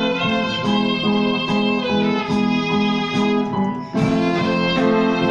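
Violin playing a melody over a steady plucked-string accompaniment, with a brief break in the music about four seconds in.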